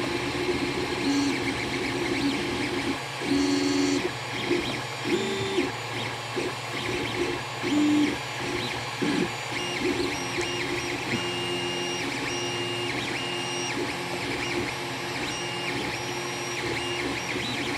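Stock Creality Ender 3 3D printer printing: its stepper motors sing short tones that jump in pitch with each move, over a steady hum.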